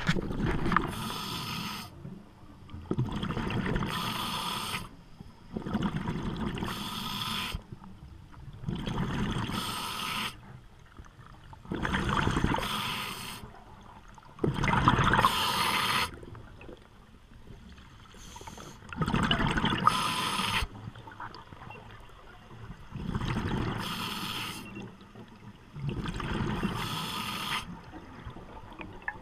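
Scuba diver breathing underwater through a regulator: bursts of exhaled bubbles, each about a second and a half long, come roughly every three seconds, with a quieter hiss between them.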